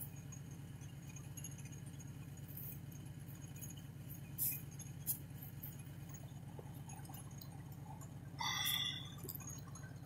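A small engine idling steadily with a low, evenly pulsing hum. Two short clicks come about halfway through, and a brief wavering squeak near the end.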